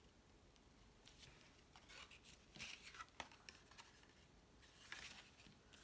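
Faint rustling and light taps of cardstock pieces being handled and pressed together by hand, in short scattered bursts.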